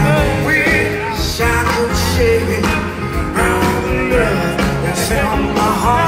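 A full band playing a song live through a concert PA, heard from the audience, with electric guitars and drums.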